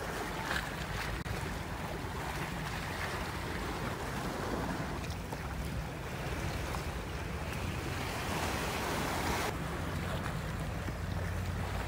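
Storm-driven sea waves surging and splashing over a broken wooden jetty and shoreline rocks, with wind buffeting the microphone as a low rumble. The higher hiss of the splashing drops away abruptly about nine and a half seconds in.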